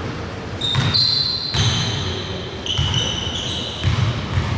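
Basketball game play on a gym court: the ball bouncing, repeated thumps, with high squeaks of sneakers on the floor through the middle.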